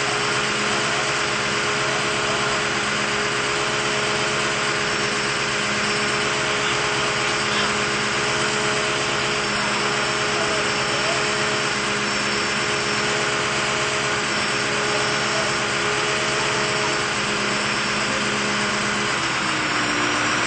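An engine running steadily at a constant speed, with a short dip and rise in pitch near the end.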